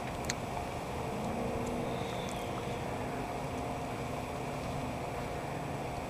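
Steady outdoor background rumble with a faint constant hum, and a couple of faint, short, high chirps in the first half.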